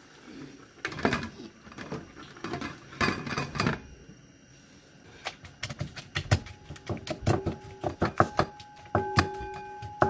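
Habanero pepper being pounded with a pestle in a mortar: a couple of scraping, grinding passes, then a fast run of sharp strikes, about three or four a second, some of them ringing briefly.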